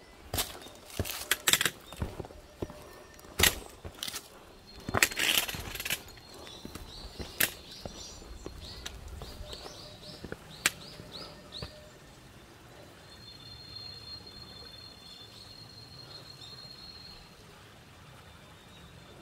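Footsteps and knocks of boots and gear on rock, ending about 8 seconds in. A bird calls over them in a quick run of short high chirps, and later a thin, high, steady whistle lasts a few seconds.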